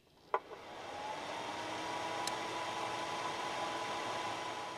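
A click as the Teampie TP-7500.1D amplifier switches on, then a cooling fan spinning up to a steady whir with a faint whine in it.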